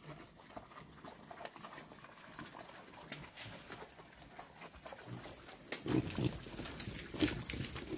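Pigs grunting, irregular and louder from about six seconds in, with faint scattered clicks and rustling earlier.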